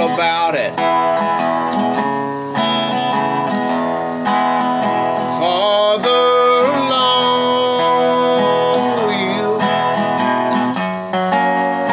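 Wooden-bodied resonator guitar played with a metal slide, picking a slow Southern gospel melody with held notes joined by smooth gliding slides.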